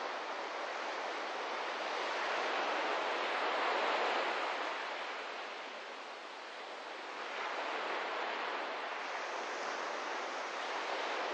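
Small waves washing onto a sandy shore, a steady surf hiss that swells about four seconds in, falls away, then builds again a couple of seconds later.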